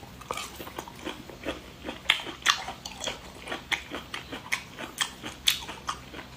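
Close-miked eating: a run of sharp crunching bites and chewing clicks, irregular at about two or three a second.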